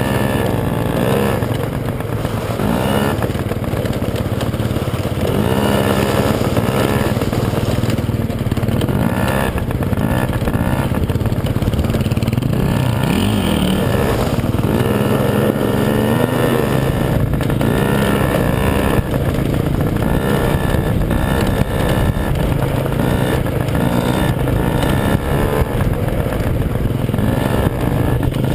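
Small dirt bike engine running while riding, its pitch rising and falling with the throttle, heard from a helmet-mounted camera.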